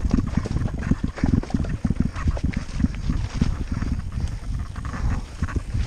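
Mountain bike descending a rough, stony trail: rapid, irregular knocks and rattles from the bike over rocks and roots.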